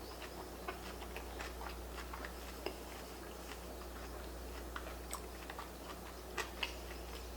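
Close-miked chewing of a sushi roll: irregular small wet mouth clicks, with a couple of louder clicks about six and a half seconds in, over a steady low hum.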